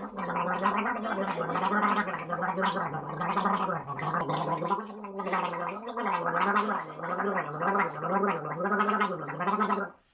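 A man gargling hot salt water, voicing a tone through it so the gargle carries a pitch. In the second half the pitch wobbles up and down about twice a second, and the gargle stops suddenly near the end.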